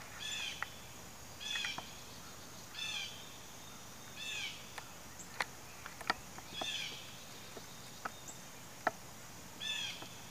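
An animal call outdoors: a short chirp of falling notes, repeated about every one to two seconds, with faint sharp clicks scattered between the chirps.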